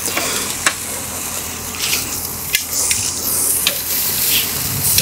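Chicken pieces sizzling on the hot grill grate of a Big Green Egg kamado, with a steady hiss and scattered sharp pops and crackles.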